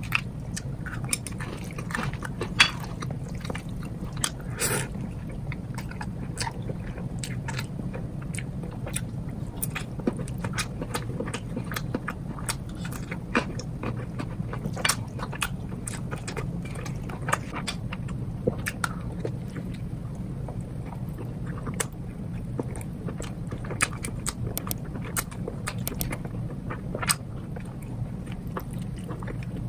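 Close-up eating sounds of egg noodles in broth: slurping and chewing, with many short, sharp clicks and smacks, over a steady low hum.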